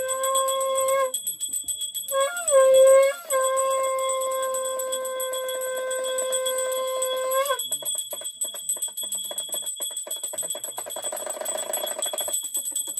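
A conch shell blown in two long notes, each scooping up at the start and then held steady: a short one ending about a second in, then a longer one of about five seconds. Under it, a puja hand bell is rung in a fast, steady jingle, which carries on alone after the conch stops.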